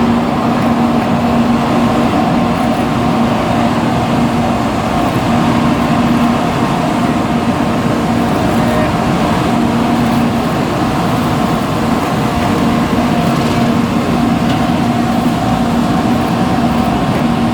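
Steady, continuous vehicle running noise with a faint hum that fades in and out.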